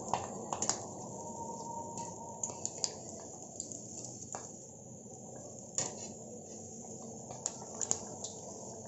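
Egg bondas deep-frying in hot oil with a soft, steady sizzle, and a scattering of light clicks and taps as a wire skimmer turns them against the metal pan.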